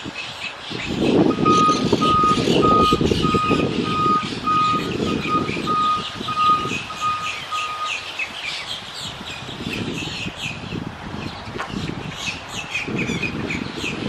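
An electronic reversing alarm beeping steadily on one pitch, about two beeps a second, stopping a little past the middle, over a low rumble. Monk parakeets chatter throughout.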